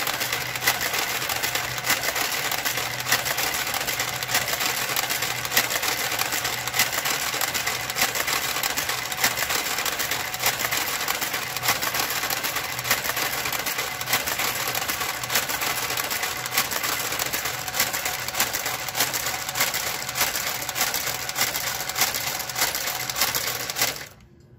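A Brother motorised garter carriage working its way along a knitting machine's needle bed: a steady motor hum with an even click about once a second as it knits stitch by stitch. It stops suddenly near the end, at the end of the row.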